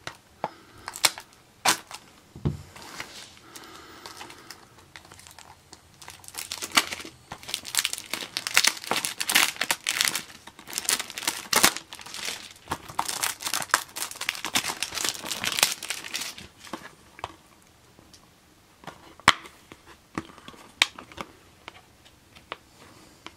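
Plastic shrink-wrap being torn and peeled off a Blu-ray case, crinkling densely for about ten seconds in the middle. A few sharp clicks follow near the end as the plastic case is handled.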